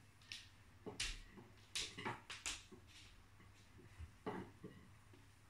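Corgi puppy gnawing on a stick: irregular, sharp crunching clicks of teeth on the stick, several close together about two seconds in and a couple more near the end.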